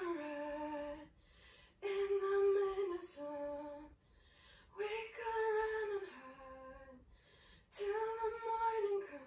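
A woman sings unaccompanied into a studio microphone while recording a vocal take. She sings four short phrases, each a held note that drops to a lower note at its end, with brief pauses between them.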